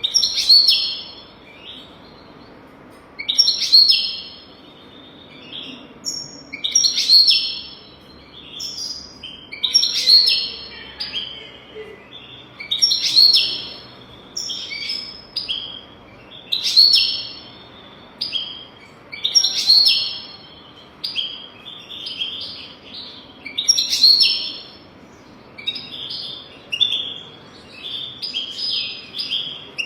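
European goldfinch singing: bright twittering song phrases every few seconds, running together into a longer burst near the end.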